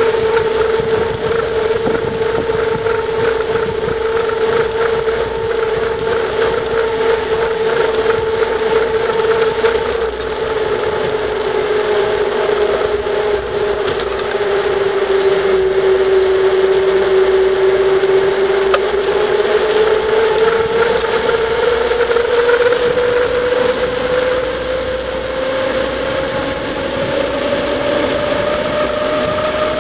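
Bicycle tyres humming on asphalt during a fast downhill run, with wind rushing over the microphone. The hum holds one steady pitch, sinks a little past the middle, then climbs steadily near the end as speed builds.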